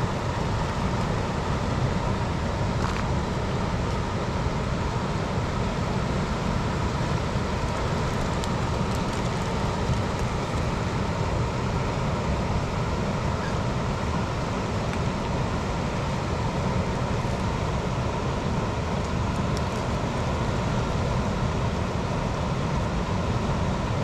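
Fast-flowing river rushing steadily, an even, unbroken noise with a faint steady tone running through it.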